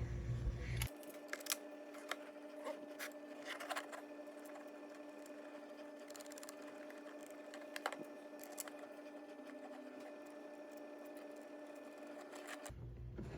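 Faint scattered clicks and ticks of small screws and 3D-printed plastic parts being handled and fitted, over a steady low hum.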